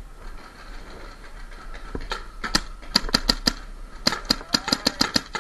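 Paintball marker firing in rapid strings of sharp pops: a few shots about two seconds in, a quick string of about five around three seconds, then a longer rapid string of about eight shots from about four seconds in.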